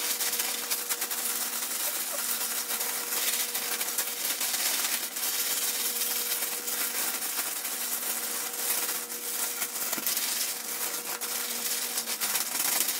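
Large zip-top plastic bag of ice and salt being shaken and kneaded by hand to freeze an ice-cream mix: continuous crinkling plastic and crunching, shifting ice.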